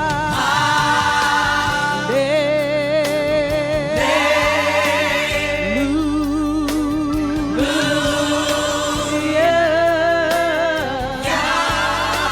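Gospel praise team singing with a choir over band accompaniment, in long held notes with heavy vibrato, each lasting about two seconds.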